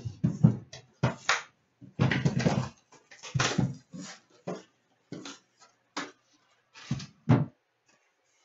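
A hockey card box being opened and its packs handled: a quick, irregular run of short crinkles, rustles and light knocks of cardboard and wrapper.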